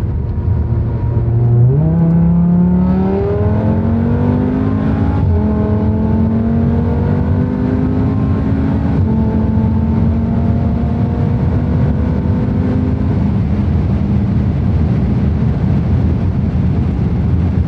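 Five-cylinder turbo engine of a heavily tuned VW Golf 7 R pulling at full throttle, heard from inside the cabin. The engine note rises steadily with the revs, dips once at an upshift at about 6,500 rpm some nine seconds in, climbs again, then falls away under road and wind noise near the end.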